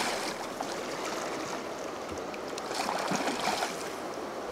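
River water running steadily, with a few faint clicks and knocks.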